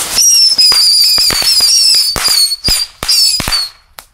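A fuse-linked string of small firecrackers going off: a high, wavering whistle runs for about three and a half seconds, broken by about ten sharp bangs, with one last bang near the end.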